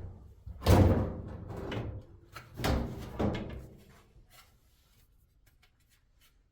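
Sheet-metal clunks and scraping from a Samsung dryer's front bulkhead and drum being lifted and pulled forward: one loud clunk about a second in and two more around three seconds, then quiet.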